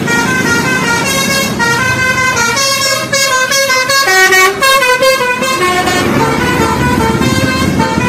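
Tour bus basuri telolet horn playing a quick melody of stepped notes, with a faster run of notes around the middle, over the bus's engine running underneath.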